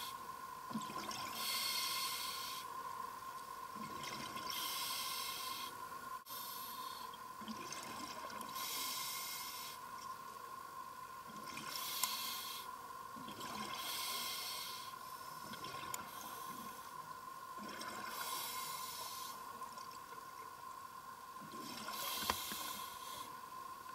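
Scuba diver breathing through a regulator underwater: a hissing rush of exhaled bubbles about every three to four seconds, seven times, with softer inhalations between and a steady faint hum underneath.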